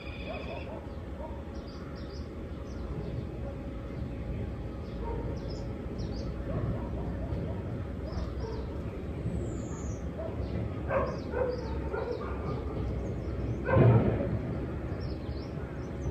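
Outdoor ambience over a steady low background rumble: small birds chirping and whistling, and a dog barking in the distance, twice late on, the second bark the loudest sound.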